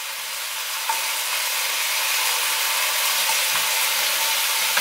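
Chicken browning in a little oil in a stainless-steel pan, giving a steady sizzle that grows a little louder in the first second.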